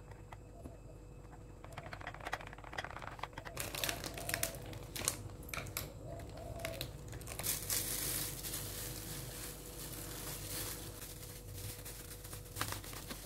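Packaging crinkling and rustling as it is handled, light at first and denser from about three seconds in.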